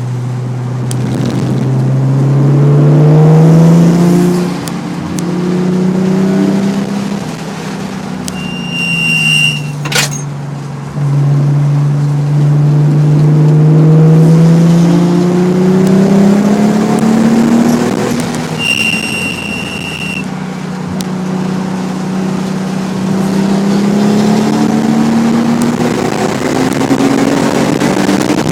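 Nissan 300ZX's V6 with a Specialty Z aftermarket exhaust pulling hard around a race track, its pitch climbing through the revs and dropping at gear changes and lifts. A high, steady squeal sounds twice, about nine and nineteen seconds in, and there is a sharp click near ten seconds.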